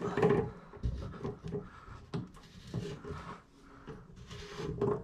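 White plastic slip nut being unscrewed by hand from the tailpiece under a kitchen sink basket strainer: irregular rubbing and small plastic clicks, loudest in the first half second.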